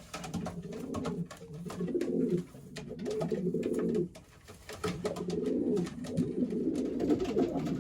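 Several racing pigeons cooing in a small loft, in repeated low phrases that overlap from bird to bird. These are the courtship coos of newly paired birds chasing one another.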